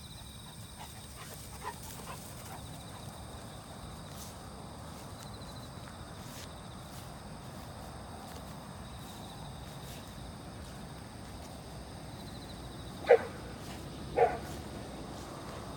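A dog barks twice, about a second apart near the end, over a steady low outdoor background.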